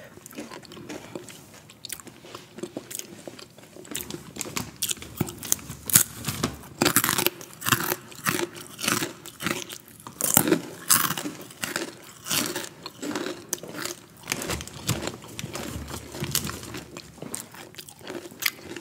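Close-up crunching and chewing of a crunchy orange corn snack stick: a run of crisp bites and chews that grows louder and denser in the middle.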